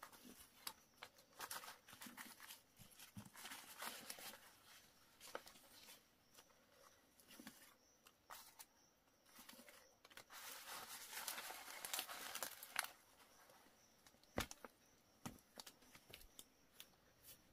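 Faint rustling and crinkling with scattered light clicks, busiest from about ten to thirteen seconds in.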